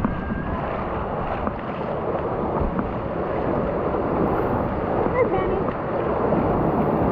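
Shallow surf washing and splashing around a paddleboard, with wind buffeting the board-mounted action-camera microphone.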